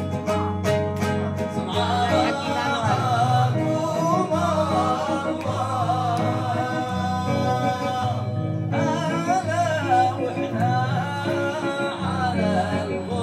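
A man singing a Sanaani (Yemeni) song, accompanying himself on the oud. The oud plays alone at first; the voice comes in about two seconds in, breaks off briefly around two-thirds of the way through, then carries on over the oud.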